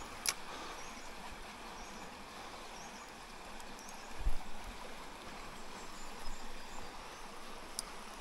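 Faint steady rush of a small creek's flowing water, with a sharp click just after the start and another near the end, and a short low thump a little past halfway that is the loudest sound.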